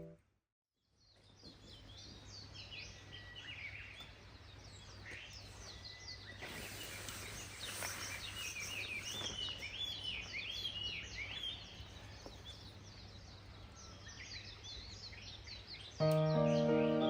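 Wild birds singing together, many overlapping quick chirps and high trills, with a brief rush of noise in the middle. Music comes in near the end.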